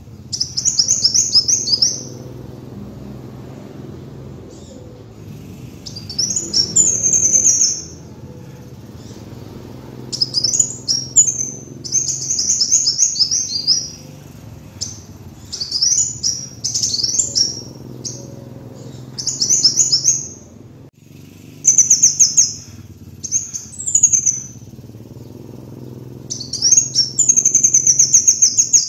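Kolibri wulung sunbird singing in repeated bursts of rapid, high twittering chirps, each lasting one to two seconds with short gaps between, over a low steady hum.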